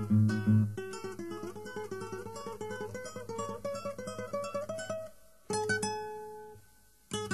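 Guitar background music: a few strummed chords, then a fast run of picked notes climbing steadily in pitch, then two strummed chords, the first left to ring and fade.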